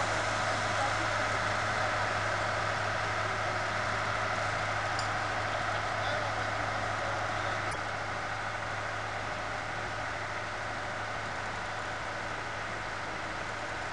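An engine running steadily at idle, with a constant low hum under an even mechanical noise, easing slightly in level about eight seconds in.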